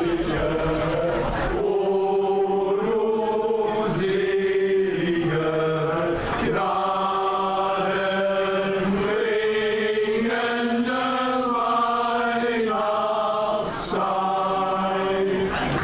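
Men's choir singing a Christmas song together, with held notes that change every second or so.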